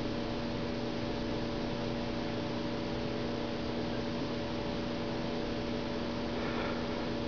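Steady hiss with a low, even hum: background noise of the recording, with no other sound standing out.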